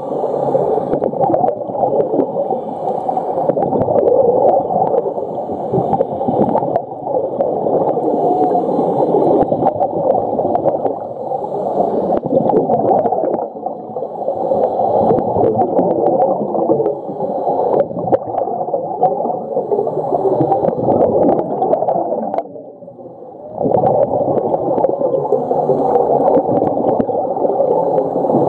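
Muffled underwater water noise picked up through a camera housing: a dense, churning rush and bubbling, strongest in the low and middle pitches, with a brief quieter dip about 23 seconds in.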